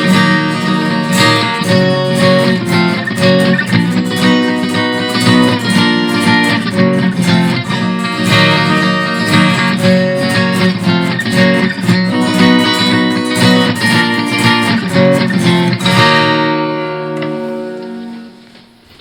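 Guitar strummed in a steady rhythm. The strumming stops about sixteen seconds in, and the last chord rings out and fades away.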